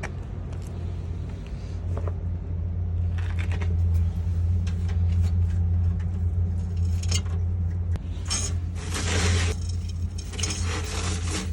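A small engine running steadily with a low drone, with metal clinking and scraping over it and two longer scraping hisses in the second half.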